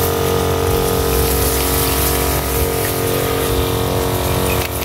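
Crop sprayer running steadily, its pump motor humming while liquid hisses out of the spray lance over rice plants.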